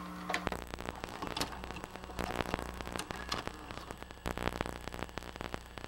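Crackling static: a dense, irregular patter of clicks over a low steady hum, starting about half a second in.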